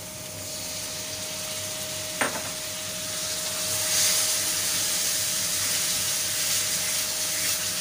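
Water poured into spice masala frying in oil in an iron kadhai, sizzling and hissing, the sizzle swelling about four seconds in as the paste is stirred with a spatula. A single knock comes about two seconds in.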